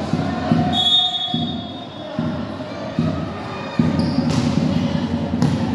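Indoor volleyball rally echoing in a large gym: thuds of the ball being played, players' calls and shuffling on the wooden court. A brief high squeak comes about a second in.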